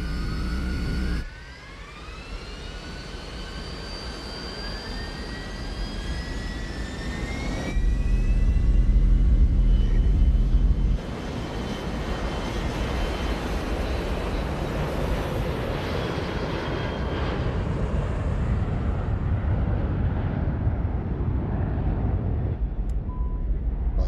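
An Airbus A320 airliner's twin jet engines spool up for takeoff, with several whines climbing steadily in pitch over several seconds. Then comes the steady roar of full takeoff thrust, with a loud low rumble for a few seconds near the middle. The sound jumps abruptly a few times between quieter and louder mixes.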